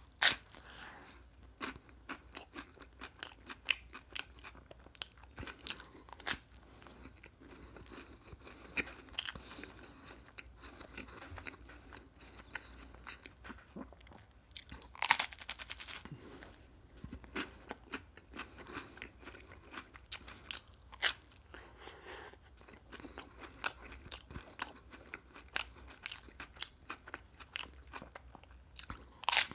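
Close-miked crunching and chewing of an open-faced sandwich on toasted bread topped with cucumber slices. Crisp crunches come one after another, the loudest just after the start, about halfway through and at the end.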